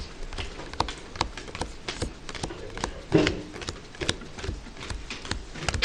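Playing cards being laid down one at a time on a desk: a run of light, irregular taps and snaps, about two or three a second.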